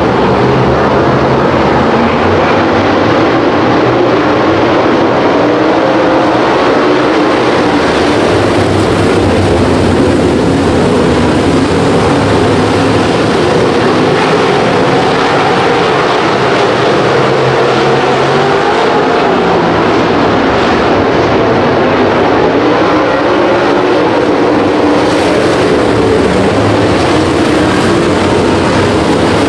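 Dirt track race cars running hard around the track during a race, a loud unbroken engine drone whose pitch wavers as the cars accelerate and lift.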